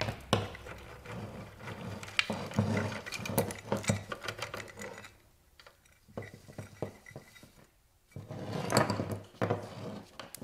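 Split roller drive chain being pulled off its sprockets by hand, the metal links clinking and rattling in irregular spells, with a pause in the middle.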